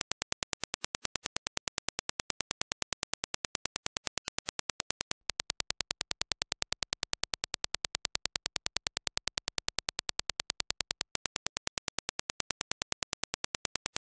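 A rapid train of sharp, evenly spaced clicks, several a second: a test impulse signal. About five seconds in it switches to the impulse as reproduced by Sennheiser HD660 S2 headphones and picked up on a measurement head, slightly louder. About eleven seconds in it goes back to the reference Dirac impulse.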